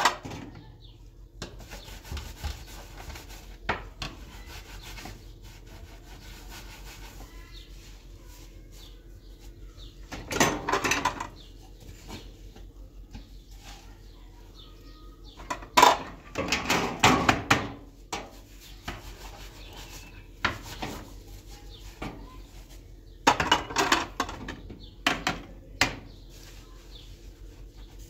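Intermittent rough scraping and rubbing in bursts of one to three seconds, with scattered sharp knocks between them.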